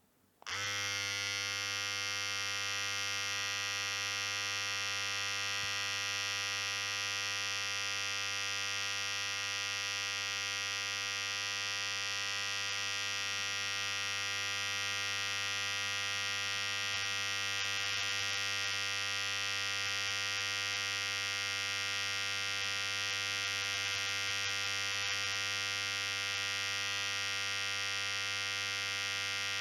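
Electric hair clipper switching on about half a second in, then buzzing steadily.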